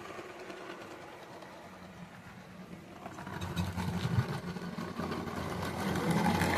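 Miniature garden-railway train running on the track. Its wheels and running gear clatter in a quick, regular rhythm over a low rumble that grows louder from about three seconds in.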